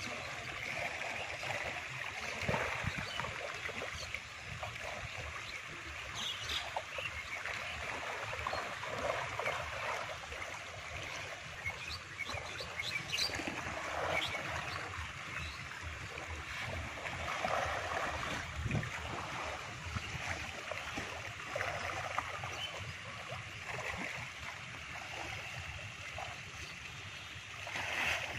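Steady outdoor rushing noise, with irregular low wind buffeting on the microphone.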